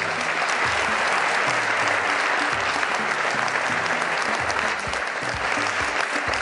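Audience applauding steadily, with music and its low bass notes running underneath.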